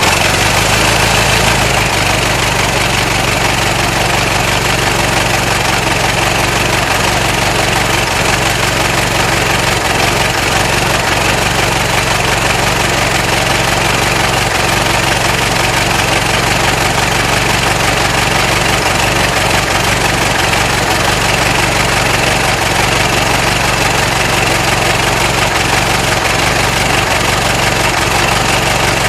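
Ford Model T's four-cylinder flathead engine running steadily at an unchanging speed.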